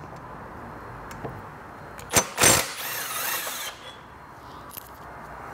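A power tool running briefly about two seconds in, loosening one of the swing-arm mount Allen bolts on the scooter, with a sharp metal clack as it starts; steady low workshop noise before and after.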